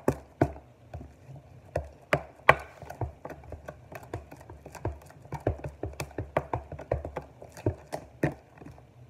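A spoon stirring thick fluffy slime mix in a clear plastic tub, giving irregular clicks and knocks against the tub, a few each second, with several louder knocks.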